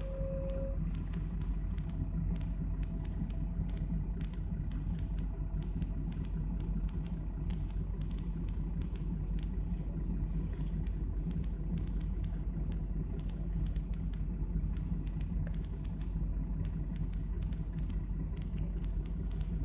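Steady low rumble of a city bus under way, heard from inside the cabin, with frequent light rattles and clicks.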